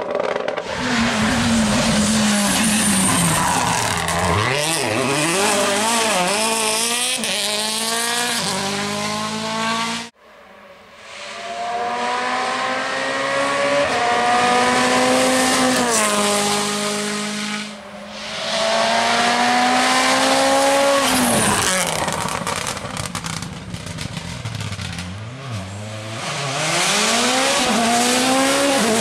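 Hyundai i20 WRC hybrid rally car's turbocharged four-cylinder engine driven hard, revs climbing and dropping sharply through quick gear changes over several passes. The sound breaks off suddenly about ten seconds in and picks up again with another pass.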